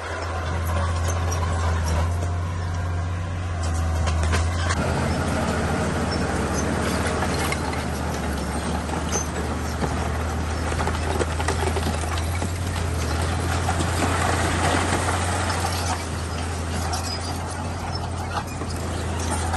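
Bulldozer's diesel engine running steadily under load, with a dense rattling and scraping of stone and tracks that grows louder about four to five seconds in.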